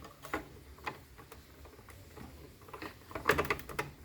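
Hard drive being pushed and worked into a docking station's SATA slot: scattered plastic clicks and knocks, with a quick run of clicks a little over three seconds in.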